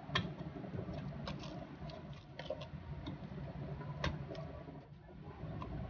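Chunks of raw beef placed into a stainless steel pot on top of chopped onions and oil: a scatter of soft, irregular taps and clicks, the sharpest about four seconds in.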